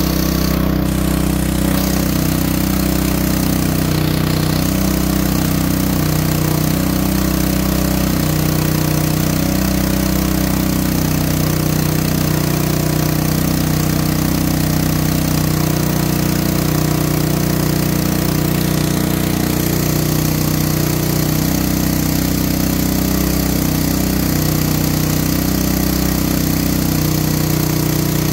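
Portable petrol generator engine, fitted with a water bubbler on its intake, running steadily under load. Its steady hum and its level hold throughout.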